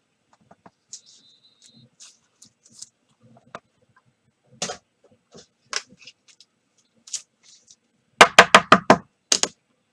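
Trading cards being handled on a table: scattered light clicks and short rustles, then a quick run of about five sharp knocks and one more knock near the end.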